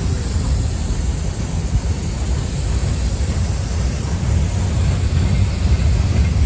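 Freight train of tank cars rolling past close by: a steady low rumble of wheels on rails.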